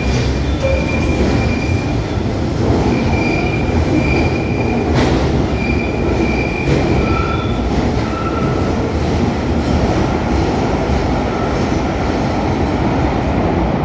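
London Underground 1972 Stock train running at speed: a loud, steady rumble with high-pitched wheel squeal coming and going.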